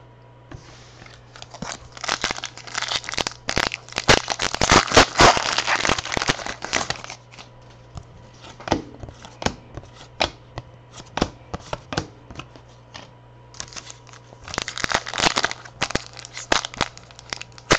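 Trading-card pack wrappers being torn open and crinkled, with cards handled and shuffled, making irregular crackling and clicking. The crinkling is densest for the first several seconds and again near the end, with sparser clicks in between, over a steady low hum.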